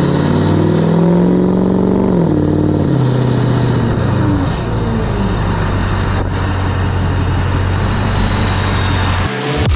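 Diesel truck engine and exhaust under way: it accelerates with the pitch climbing for about two seconds, drops back, then cruises steadily, with a faint high whistle sliding slowly down in pitch through the second half.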